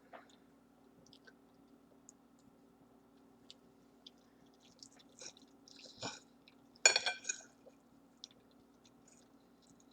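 Close-up chewing of spaghetti: soft, wet mouth clicks scattered throughout, with a louder cluster of sharp clicks about seven seconds in.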